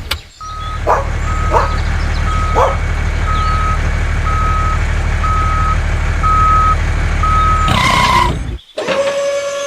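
A vehicle reversing alarm beeps about once a second, eight times, over a steady low diesel-like engine rumble. Near the end both stop after a brief burst of noise, and a different steady tone starts.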